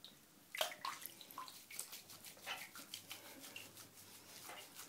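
Faint splashing and dripping of bath water as a hand rubs a wet cat's fur in a bathtub, in short irregular swishes, the loudest about half a second in.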